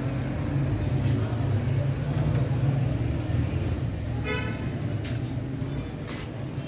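Steady low city traffic rumble, with a short vehicle horn toot about four seconds in.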